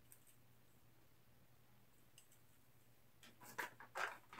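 Near silence, then a few short rustles and clicks near the end as small plastic toy parts and crumpled packaging are handled.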